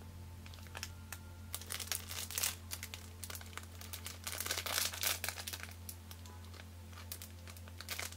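Clear plastic bag crinkling in hands as the clear canopy sprue inside it is turned over. The crackles come in a dense run through the first five seconds or so, thin out, and pick up again near the end.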